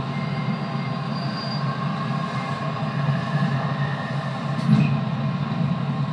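JR 211 series electric train running, its external-fan traction motors humming and whining steadily over a rumble of wheels on rail. A brief knock with a short high squeal comes about three-quarters of the way through.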